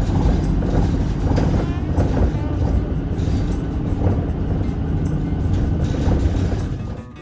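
Loud, low rumble of a moving vehicle, dropping away abruptly near the end.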